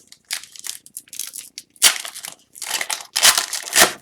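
A foil hockey card pack wrapper crinkling as it is torn open and handled, in a run of noisy crackles that gets louder from about two seconds in.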